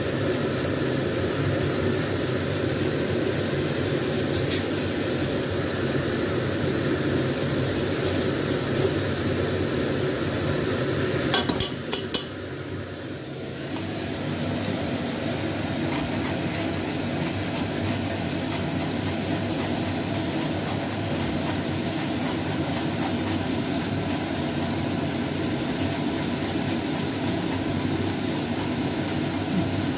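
A masala of garlic and tomato sizzling in a pot while a spoon stirs it, over a steady background hum. After a short break about twelve seconds in, fresh ginger is rubbed on a small metal hand grater in quick scraping strokes.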